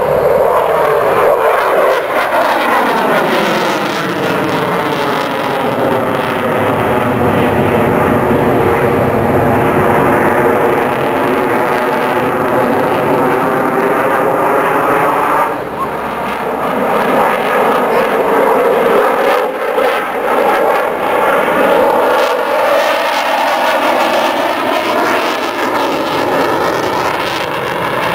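RAF Eurofighter Typhoon's twin turbofan jet engines, loud and continuous as the jet flies its display overhead, with a sweeping, phasing tone that falls and rises again as it turns and climbs. The noise dips briefly about halfway through before swelling back.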